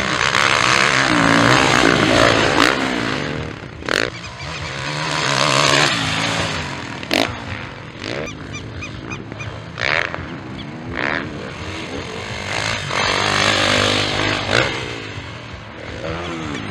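Motocross bike engines revving hard and passing by, their pitch rising and falling as the throttle opens and closes, the sound swelling and fading as riders come and go. A few brief sharp cracks cut through the engine noise.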